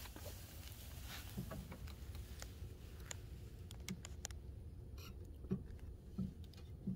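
Faint handling noise as a camera is moved around and under a wooden crate: scattered light ticks and rustles over a low steady rumble.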